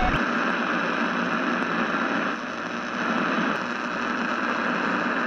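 Steady hissing static, like an untuned analogue television, dipping a little in level about two and a half seconds in.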